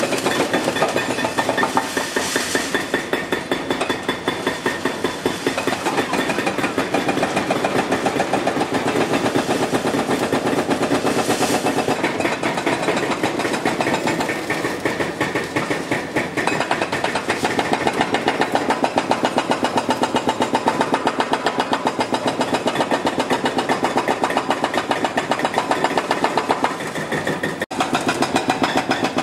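Demolition excavator at work on reinforced concrete: its diesel engine running under load with a rapid, even pounding, broken once briefly near the end.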